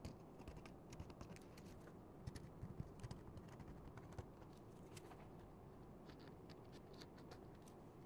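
Near silence with faint, scattered small clicks and taps, mostly in the first five seconds: gloved hands working a glue tube's nozzle around a metal iPod frame.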